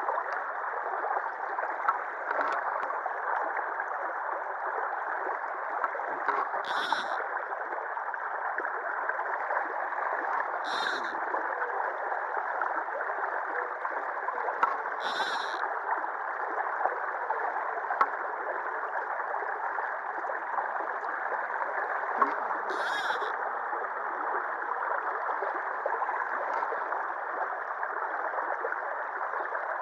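Shallow river water rushing steadily over and around a concrete sill, with four brief, higher-pitched sounds over it.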